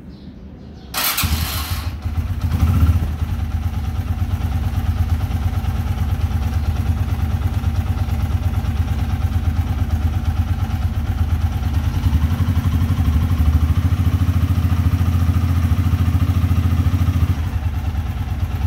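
Wego 150cc motorcycle engine electric-started about a second in, catching at once, blipped briefly, then idling steadily.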